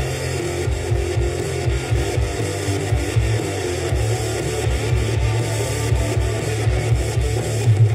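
Background music: a guitar-led track with a strummed guitar over a steady beat.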